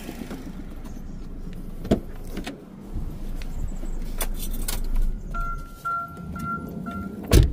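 Car door handling on a 2009 Chevy Cobalt: a few clicks as the driver's door is opened, then an electronic warning chime beeps about four times. The door shuts with a loud thump near the end.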